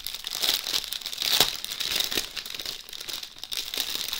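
Clear plastic bag of small diamond-painting drill packets crinkling and rustling as hands press and shift it, with the sharpest crackle about a second and a half in.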